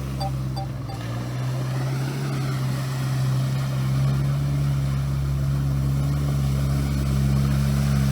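Off-road vehicle's engine running steadily while it drives through water to wash mud off, with the noise of water around it. A faint regular beeping, about three a second, stops about a second in.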